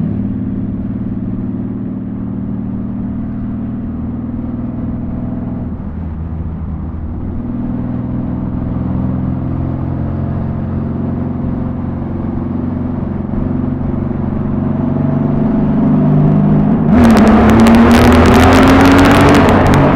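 Honda Valkyrie's flat-six engine through Cobra six-into-six exhaust pipes, running steadily at a cruising pace. About three seconds before the end it revs up hard under acceleration, and loud wind noise rushes over the helmet-mounted microphone.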